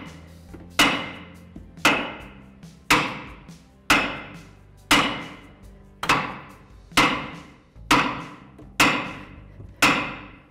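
Hammer blows on the front suspension, about one a second, each a sharp metallic strike that rings out before the next. They are knocking the lower ball joint stud loose from the steering knuckle.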